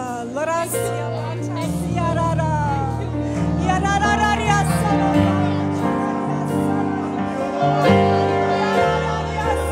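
Live worship music: singers holding wavering sung lines over sustained keyboard chords that change about once a second.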